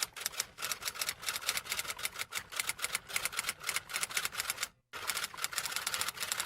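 Typewriter keys clacking in a rapid, uneven run of typing strokes, broken by a brief gap about five seconds in before the clacking starts again.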